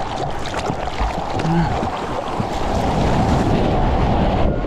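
Ocean surf rushing and breaking, with wind buffeting the microphone.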